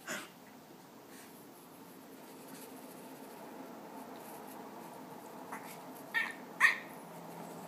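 Shih Tzu puppy grunting in a low, continuous rasp, with a short call at the start and two sharp, high yelps about six seconds in, the second the loudest.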